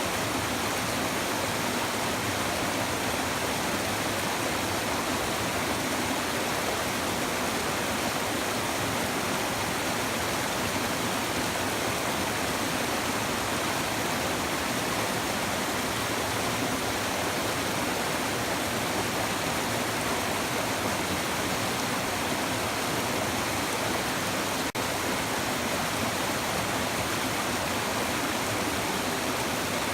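A shallow river babbling and murmuring steadily, with an even rush of water and no change in flow.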